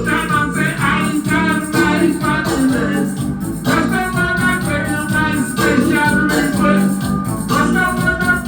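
Roots reggae music played loud over a sound system: a steady beat with shaker percussion, a bass line and a voice singing.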